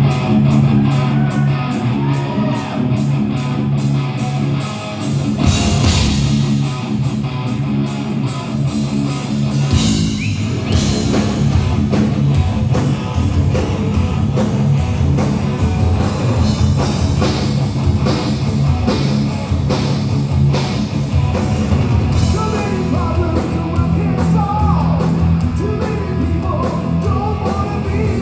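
Live hard rock band playing loud through a PA: distorted electric guitars, bass guitar and a drum kit, heard from the audience in a large hall.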